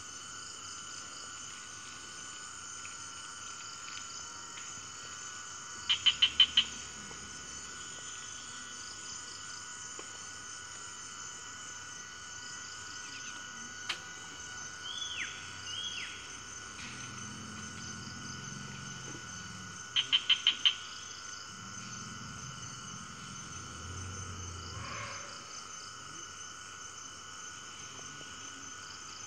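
Steady rainforest chorus of insects and frogs, several high buzzing tones held without a break. Twice, about six seconds in and again about twenty seconds in, a loud quick run of four or five sharp chirps stands out above it, and a couple of falling whistled calls come near the middle.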